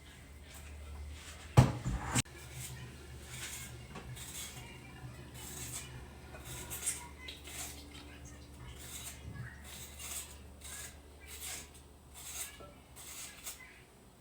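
Kitchen clatter: utensils knocking and scraping against pots and dishes, with a loud knock about one and a half seconds in, then a run of short clinks and scrapes over a low hum.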